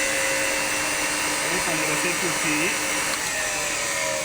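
Belt-driven compressor and its electric motor running steadily, a loud hiss with a steady hum; one tone starts to slide slightly lower near the end.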